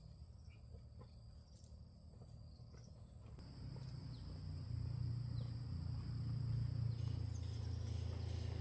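Insects trilling in steady high tones, with a low engine hum coming in about halfway through and growing louder toward the end.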